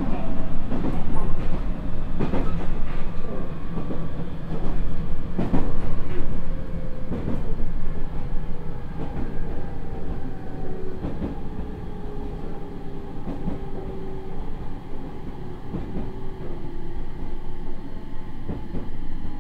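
Onboard running sound of a JR East 701 series electric train car (IGBT-VVVF inverter, MT65 AC traction motors) slowing down under its brakes: the motor and inverter whine falls steadily in pitch over a low rumble. The wheels click over rail joints, the knocks coming less often as the speed drops, and the whole sound eases off toward the end.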